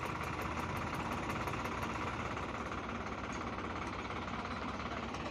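Engine idling steadily with an even, unchanging rumble.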